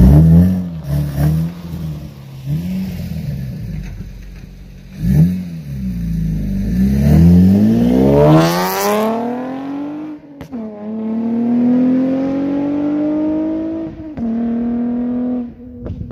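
Honda Accord V6 coupe's engine through a straight-piped exhaust with the electric cutout open, running hard: a few quick rev swings, then a long full-throttle pull with the pitch climbing steeply to its loudest. The pitch drops suddenly a little past ten seconds in, climbs again more slowly, steps down, and falls off near the end.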